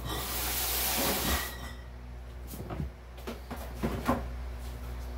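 A box fan runs with a steady low hum. Over it comes a loud scraping hiss lasting about a second and a half, then a few light knocks and clicks about halfway through.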